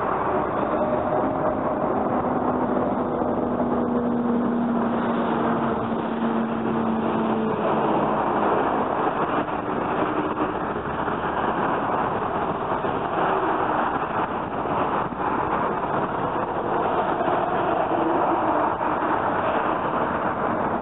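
Heavy road traffic passing close by, mostly large trucks: a loud, unbroken rush of tyre and engine noise, with a low engine hum standing out for a few seconds about two seconds in.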